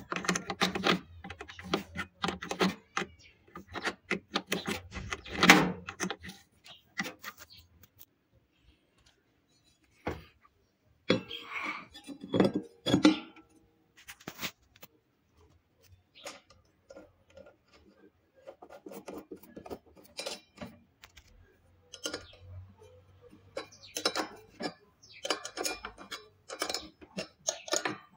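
Irregular metallic clinks and knocks of hand tools and metal parts being handled during a washing-machine bearing job, with a quiet stretch about eight to ten seconds in.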